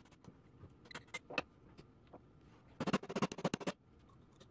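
A few light metallic taps of a hammer on a pin punch, driving a locating dowel pin into the cast-iron knife block of a Linotype linecaster. Just under three seconds in comes a quick rattling run of metallic clicks lasting nearly a second.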